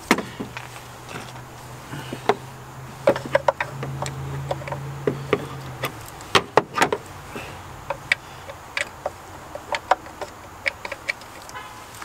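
Hand tools working screws on a car engine: scattered metallic clicks and clacks at uneven intervals, under a low steady hum that stops about six seconds in.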